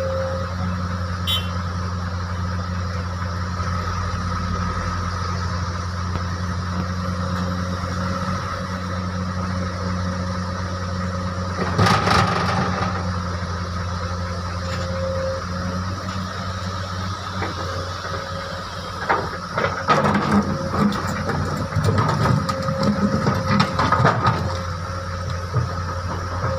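Excavator's diesel engine running steadily, with a loud knock about twelve seconds in and a run of heavy clattering knocks near the end.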